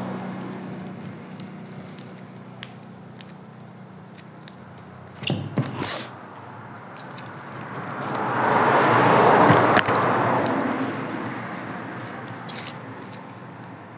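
Dry straw strips rustling and crackling as they are threaded through a woven straw bag, with a cluster of sharp clicks about five seconds in. A broad noise swells and fades between about eight and eleven seconds in, the loudest sound.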